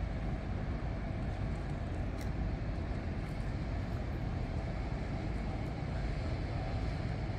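Steady low rumble of city background noise by the river, with distant traffic, level throughout.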